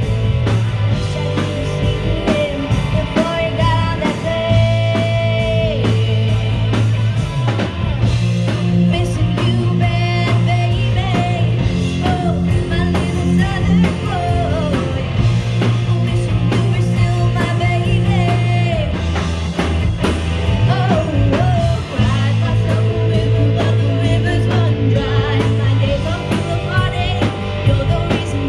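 Live rock band playing: a woman singing lead over electric guitars and a drum kit, loud and unbroken.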